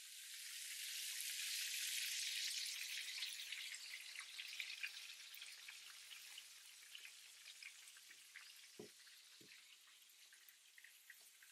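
Perch fillets frying in two pans, lightly breaded pieces in olive oil and plain fillets in butter: a hissing, crackling sizzle that swells over the first two seconds and then slowly eases. Two light knocks come about nine seconds in.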